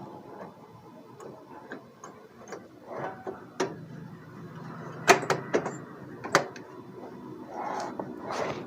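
Plastic printer parts being handled and fitted together by hand: irregular clicks and light knocks over a soft rustle. A cluster of sharper clicks comes a little past halfway.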